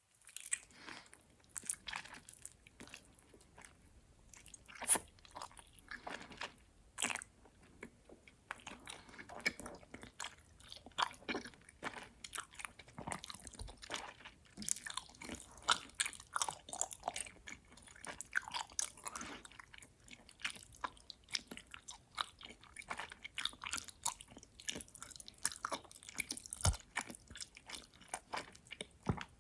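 Close-miked chewing of gummy worms: sticky, chewy mouth sounds made of many quick, irregular smacks and clicks. There is a short lull about eight seconds in, and the clicking is denser after it.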